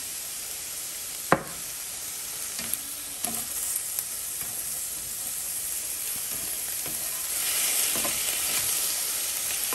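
Beef cubes and onions sizzling in a hot frying pan while being stirred with a spatula. A single sharp knock comes about a second in, a few light taps follow, and the sizzle grows louder over the last couple of seconds.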